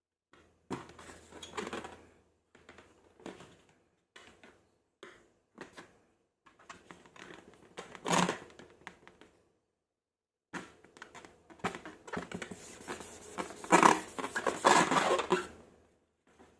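Hands working slime at close range: irregular sticky crackling and clicking in bursts, with short silent gaps, loudest about 8 seconds in and near the end.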